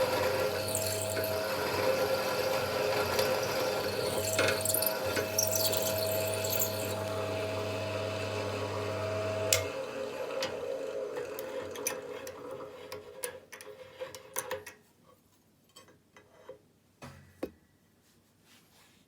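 Electric drill running and boring into an aluminium rod, with a whine that comes and goes as the bit cuts. About ten seconds in it stops with a click and winds down, followed by a few light knocks.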